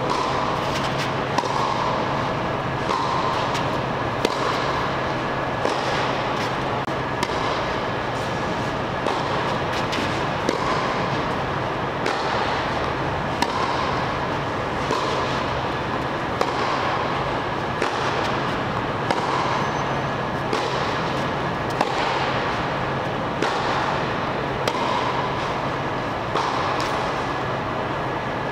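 Tennis baseline rally on clay: racket strikes on the ball and its bounces, a sharp pop about every one and a half seconds, over a steady hum.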